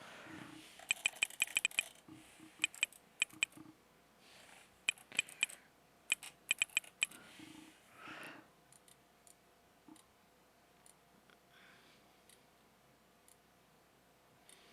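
Quick runs of sharp clicks from typing and clicking at a computer keyboard and mouse, several short flurries in the first half, then only scattered faint single clicks.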